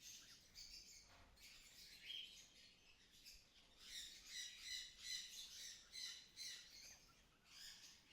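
Lovebirds chirping faintly: a string of short, high chirps, busiest from about halfway through.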